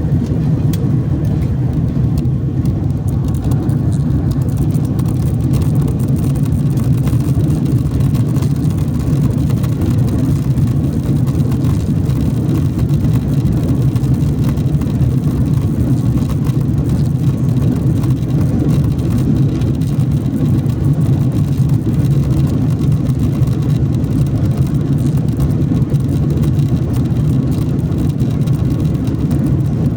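Airliner cabin noise: a steady, loud roar of the jet engines and rushing air heard from inside the passenger cabin.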